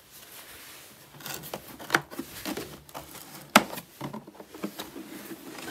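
Handling noise as a hard plastic tool case is grabbed and moved on a tiled floor: rustling and rubbing, with a sharp click about two seconds in and a louder one at about three and a half seconds.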